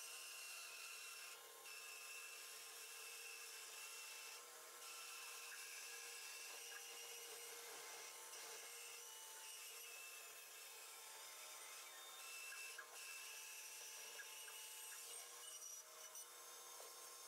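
Bandsaw cutting a log into a round bowl blank, heard faintly: the saw runs steadily while the blade works through the wood as the log is turned on a circle-cutting jig's pivot pin.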